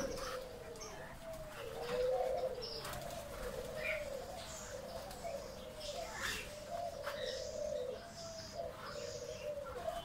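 Several doves cooing over one another without a break, a low wavering coo. Small birds chirp here and there, and a few wing flaps come through, one near the start.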